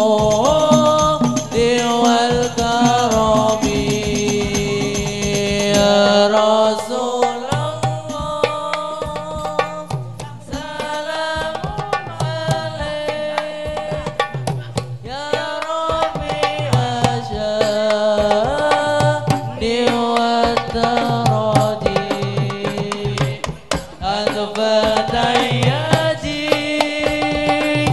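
Hadroh ensemble: hand-struck rebana frame drums beating a fast, busy rhythm under a group singing Arabic devotional song (sholawat). The voices thin out for several seconds in the middle while the drumming carries on.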